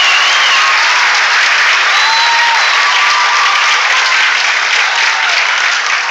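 Audience applauding loudly, with a few voices calling out over the clapping. The applause begins to thin out near the end.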